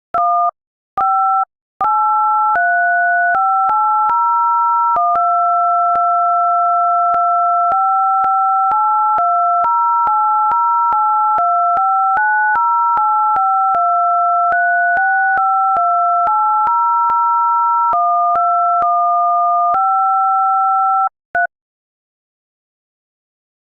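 Phone dialer keypad touch-tones (DTMF), each key sounding a pair of steady tones, pressed one after another to play a melody: a few short beeps, then from about two seconds in a long unbroken run of held notes changing every half second or so, stopping about 21 seconds in.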